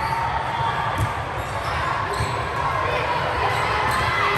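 Balls thudding on a gym floor amid the chatter of players and spectators, with a few sharper knocks about a second in and near the end.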